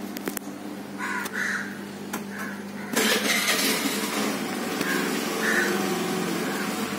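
Crows cawing several times over a steady electrical hum. About three seconds in, a louder steady hiss comes on suddenly and stays.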